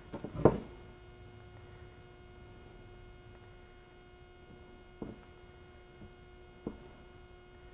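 A few soft knocks of a pie plate and fingers against a wooden tabletop while a pastry edge is pinched into scallops: one sharper knock about half a second in, two fainter ones later, over a faint steady hum.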